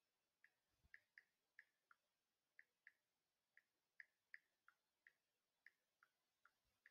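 Near silence with faint, short ticks at an uneven pace, about two or three a second.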